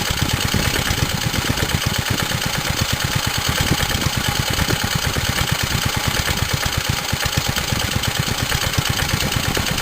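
1946 J.A.P. Model 5 side-valve four-stroke petrol stationary engine running unloaded with a rapid, even firing beat. It is running about as well as it can without a load, which these engines need to run well.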